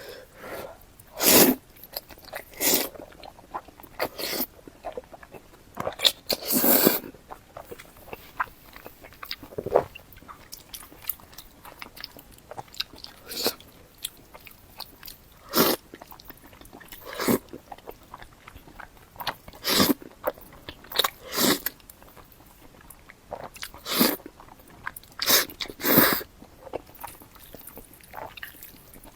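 Close-miked eating sounds: bites and chewing of sesame-paste instant noodles, coming in irregular short bursts every second or two.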